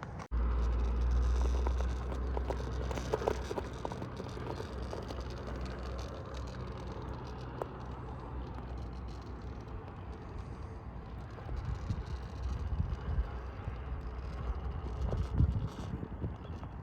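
Axial SCX10 III Early Bronco RC crawler inching over rocks: a low steady motor hum with many small clicks and crackles of tyres and chassis on stone, and a few louder knocks near the end.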